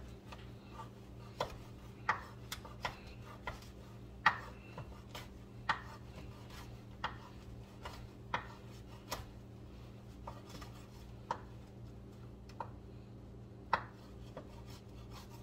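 Chef's knife cutting a baguette on a cutting board: irregular knocks of the blade through the bread onto the board, about one a second, over a faint steady hum.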